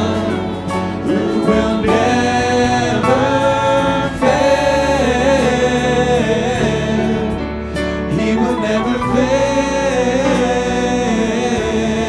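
Gospel worship song: voices singing together over band accompaniment with a sustained bass.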